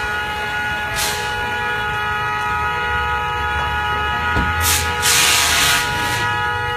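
A car horn sounding continuously on one steady, unbroken note. Short bursts of hissing noise come about a second in and again for over a second near the end, with a single sharp crack just before the second burst.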